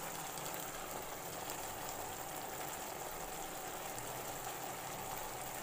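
Bitter gourd in kasundi gravy simmering in an uncovered wok, a steady bubbling sizzle.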